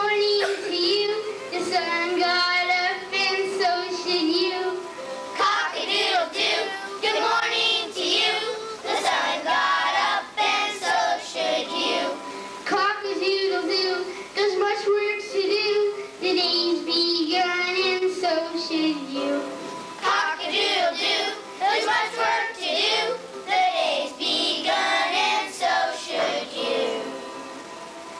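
A young child singing a song into a microphone, with held notes and short breaths between phrases; the singing stops shortly before the end.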